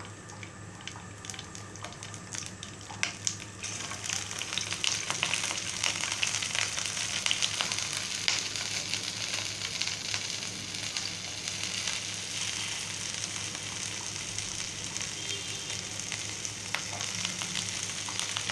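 Chopped green chillies frying in hot mustard oil in a nonstick pan: scattered crackles at first, then a denser, louder sizzle with popping from about four seconds in.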